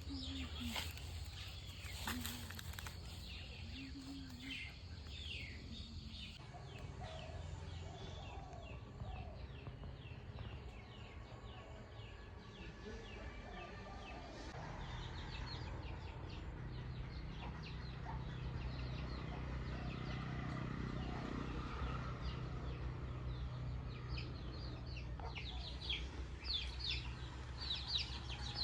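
Birds chirping over and over, with short high calls that come thickest and loudest near the end, and a steady low hum underneath.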